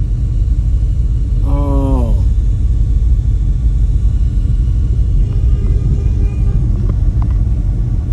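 Four Resilient Sound Gold 15-inch subwoofers in a ported birch box playing loud, steady low bass inside a car.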